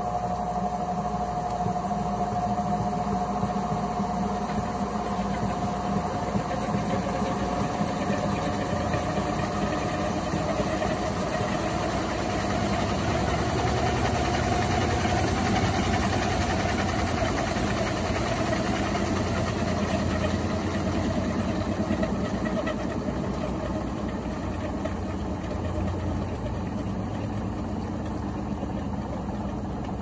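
Electrolux Turbo 15.2 kg top-loading washing machine (LTC15) running through its wash cycle, the motor and drum going steadily. A steady whine fades out over the first half, while the machine runs a little louder through the middle.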